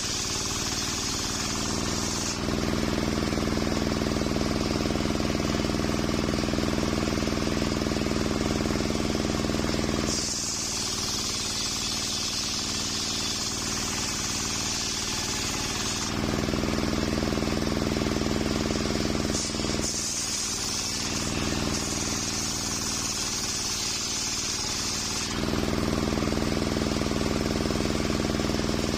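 Circular saw blade of a homemade table sawmill ripping a coconut palm log, a high-pitched cutting noise in three passes of a few seconds each. Between the passes the blade spins free and the steady hum of the saw's drive takes over.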